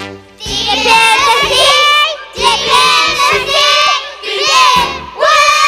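A child's high voice singing in short phrases with brief breaks between them, over instrumental backing.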